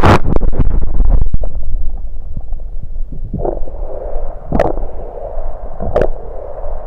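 Stomach gurgling after gulps of soda, picked up by a microphone against the belly: a loud rushing noise for the first second or so, then quieter gurgles with sharp clicks about 4.5 and 6 seconds in.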